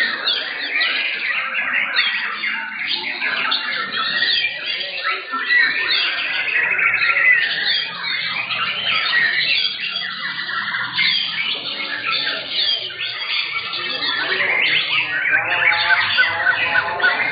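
White-rumped shamas (murai batu) singing, several birds' songs overlapping into a dense, unbroken stream of looping whistles and rapid trills.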